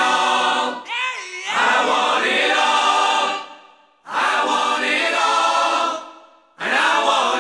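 Background music: voices singing together in held phrases, with short pauses between them.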